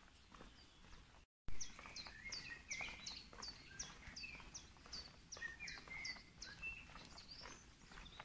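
Songbirds singing in woodland: a rapid run of repeated high, downward-sliding notes, about two or three a second, with other chirps lower down, over footsteps on concrete. About a second and a half in, the sound drops out briefly and comes back with a sudden jump in level.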